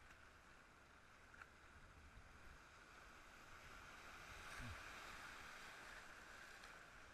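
Faint rush of river whitewater around a kayak running a rapid, swelling a little past the middle as the boat goes through the white water.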